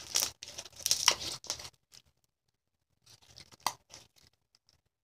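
Slime being squeezed and worked in the hands close to the microphone: irregular runs of small squelches and pops, in two spells with a short pause between them.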